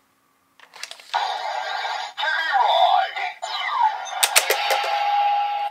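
DX Legendriver toy belt clicking as a Ride card goes in, then playing its electronic sound effects and music with sliding pitches. A quick run of sharp plastic clicks comes from the driver's mechanism about four seconds in, followed by a held tone.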